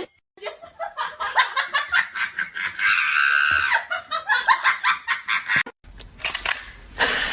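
A person laughing hard in quick repeated bursts, rising into a higher held squeal about three seconds in. It breaks off before the end, and a quieter sound follows.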